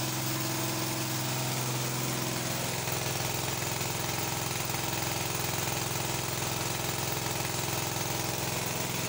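Petrol generator engine fitted with a hybrid LPG/petrol carburettor, running at a steady speed without a load change; the conversion is working fine.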